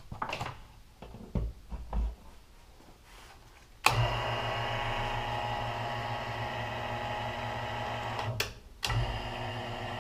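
A shaper power feeder's quarter-horsepower electric motor is switched on with a click about four seconds in. It then runs with a steady hum, driving the newly fitted feed wheels through its slower replacement gears. Near the end the hum cuts out for a moment with a click and starts up again; a few light clicks and knocks of handling come before it starts.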